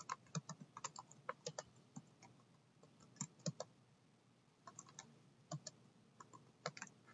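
Typing on a computer keyboard: faint key clicks in a few short runs, with pauses of about a second between them.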